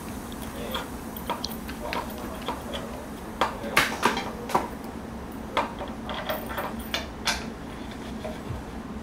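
Unpacking a new Giant Defy Advanced SL road bike: irregular clicks, clacks and rustles of cardboard and plastic protectors being pulled off the frame and handlebars. The loudest clacks come in a cluster about four seconds in and again around seven seconds.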